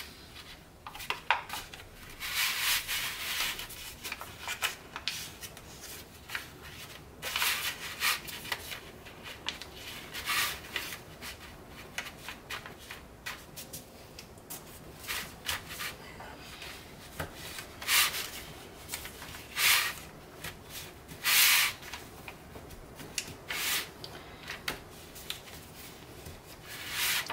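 Hands pressing and smoothing a folded Tant paper origami tessellation against a wooden table: irregular papery rubbing and swishing, with a few louder swipes in the last third.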